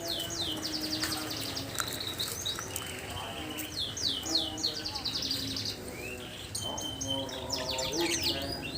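Lovebird chattering ('ngekek'): rapid runs of high, sweeping squeaky notes coming in several bursts.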